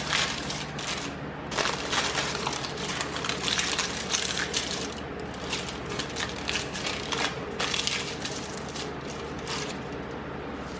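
Vacuum cleaner running with a steady hum, with irregular crackling and rattling as debris is picked up.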